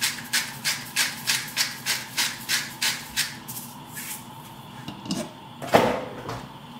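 Hand spice grinder being twisted, a steady run of short scratchy grinding strokes at about three a second that stops about three seconds in. A single sharp clack follows near the end as a glass pot lid is handled.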